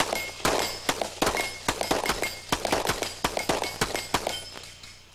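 A fast string of pistol shots, about two a second, fired at steel falling plates, mixed with the short metallic clang of hits on the steel.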